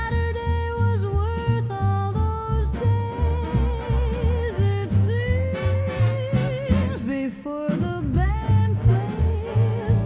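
Swing-style dance-band music: a lead melody with vibrato and sliding notes over a walking bass and a steady beat.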